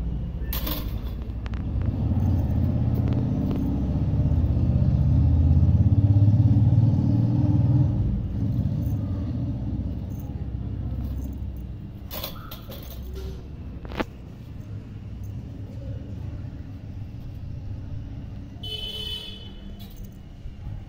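Low rumble of a motor vehicle engine that swells, peaks a few seconds in and then fades. A few sharp clicks stand out, around the middle.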